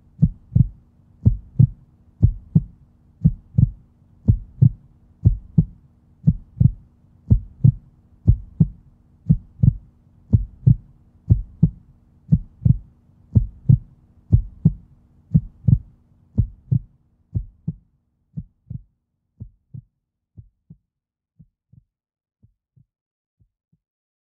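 Heartbeat sound effect: paired low thuds, lub-dub, about one beat a second over a faint steady drone. The drone stops about three quarters of the way through, and the beats grow fainter until they fade away near the end.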